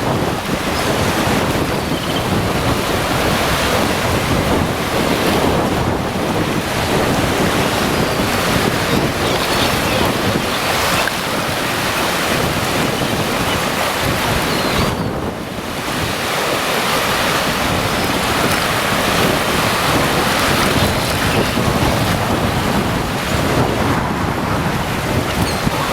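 Caspian Sea surf washing onto the beach, with wind buffeting the microphone; a steady, loud rush of noise that eases briefly about halfway through.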